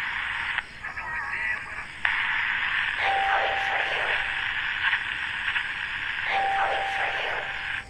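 Old valve radio giving out a steady hiss of static, with brief snatches of garbled voice about a second in. A short steady whistle sounds twice through the static, about halfway and near the end.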